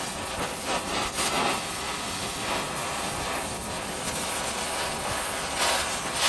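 Gas torch burning with a steady rushing hiss, heating a bent mini bike fork tube so it can be straightened.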